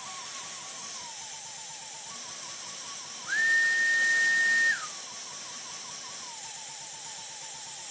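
Dyson V11 cordless vacuum motor running on medium power with a rapid, regular pulsing stutter in its whine, the 'machine gun' fault that is traced to a failing main motor. About three seconds in the whine jumps to a higher, steady, louder pitch for a second and a half, then drops back to the pulsing.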